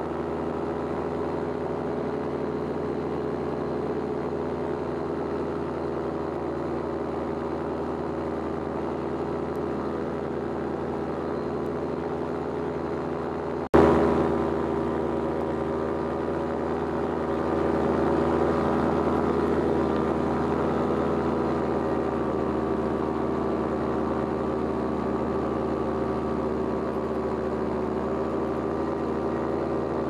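Powered paraglider's paramotor engine and propeller running steadily in flight. A sudden break with a sharp jump in level comes about 14 seconds in, and a few seconds later the engine runs slightly louder.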